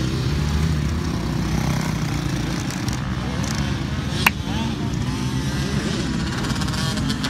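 Motocross dirt bike engines running on the track, with one sharp click about four seconds in.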